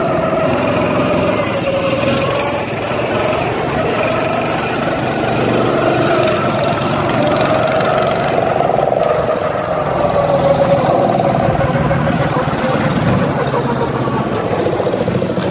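Small gas engines of go-karts running under throttle, their pitch rising and falling as the karts speed up and slow through the turns.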